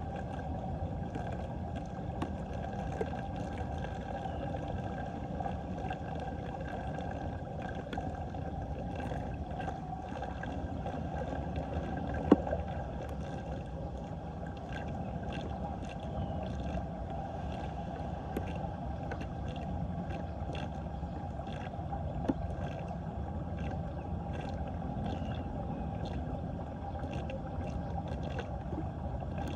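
Floodwater swirling down a cleared street storm drain in a steady rush, with light rain drops ticking on the water's surface. One sharp tap about twelve seconds in.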